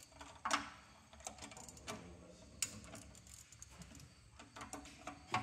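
Scattered light metallic clicks, a few a second at uneven spacing, from a ratchet turning a crow's foot line wrench to unscrew a fuel line fitting at a diesel injection pump.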